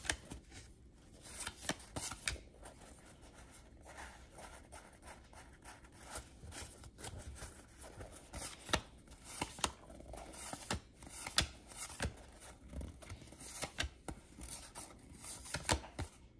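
1991-92 Fleer basketball cards being handled and sorted, with irregular light clicks and rubbing of card stock.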